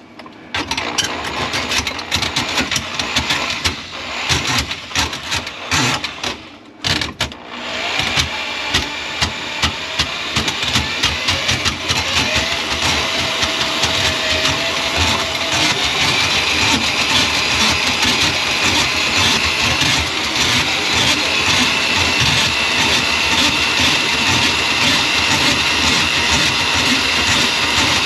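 Electric drain auger running with its cable in a kitchen sink drain line clogged with grease. The motor stops and starts with rattling in the first several seconds, then runs steadily with a high whine.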